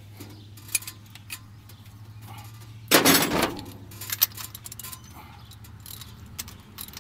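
Metal clicks and clinks of a socket wrench being fitted to and worked on the rocker-arm adjusting nuts of a Ford 460 big-block V8 during a valve adjustment, with one louder clank about three seconds in. A low steady hum runs underneath.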